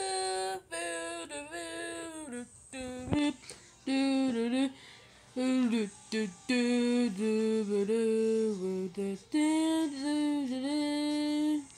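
A voice humming or singing a wordless tune in a string of held notes, sliding between pitches, with short breaks between them.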